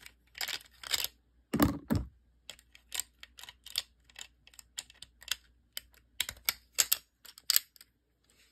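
Hard plastic parts of a Beast Wars Optimus Primal action figure clicking and knocking as its legs and joints are bent and repositioned by hand: a run of irregular light clicks, with two heavier knocks about two seconds in.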